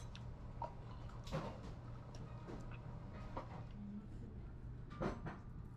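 Faint knocks and clinks of wooden chopsticks and ceramic tableware, a few scattered taps about a second or two apart, over a low steady hum.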